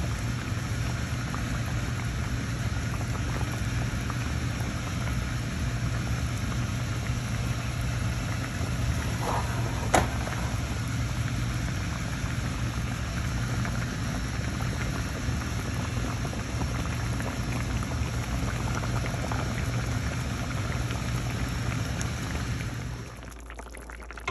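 Fish curry simmering in a pot, its thick gravy bubbling steadily over a low, even hum. One sharp click comes about ten seconds in, and the sound drops away suddenly near the end.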